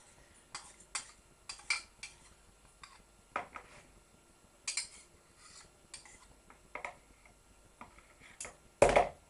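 A utensil scraping and tapping against a small dish and a glass mixing bowl with a wire whisk in it, as seasoning is knocked into the batter: scattered light clinks and taps, with one louder knock near the end.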